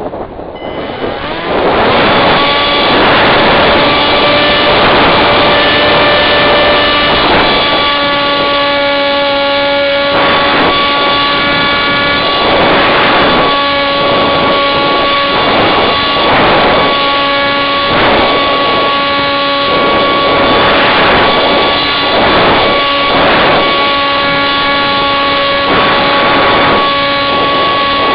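Electric motor and propeller of a Firebird Scout radio-controlled model plane, heard from a camera on board. It spins up in the first couple of seconds, then holds a steady whine. Wind rushes over the microphone every second or two.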